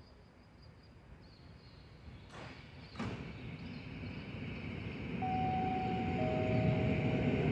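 An EN57 electric multiple unit approaching along the track, its rumble growing steadily louder. Two sharp clicks come at about two and three seconds in, and two steady whistling tones start about a second apart near the end.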